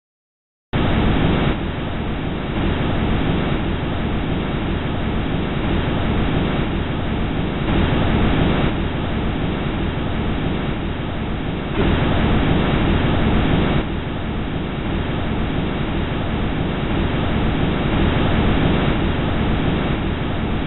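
Huygens probe descent audio from Titan's atmosphere: a steady, rushing, wind-like noise that starts about a second in after silence. It steps abruptly louder and softer a few times.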